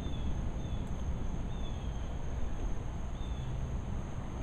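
Low rumble of distant thunder trailing off, with a steady high-pitched hum and short falling chirps repeating every second or so.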